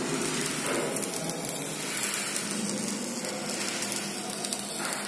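Stick arc welding on steel: the electrode arc gives a steady crackling sizzle.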